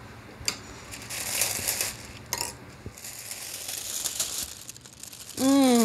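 A plastic oven roasting bag crinkling and tearing as it is pulled open by hand, in several rustling bursts. Near the end comes a woman's short, falling vocal exclamation.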